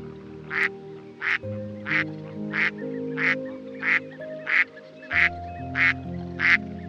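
A duck quacking in a steady series of short quacks, about one and a half a second, over soft background music with long held notes.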